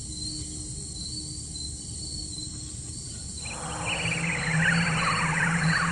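Crickets chirring steadily in the night. About halfway through, a louder sound comes in: a series of falling sweeps over a steady low hum.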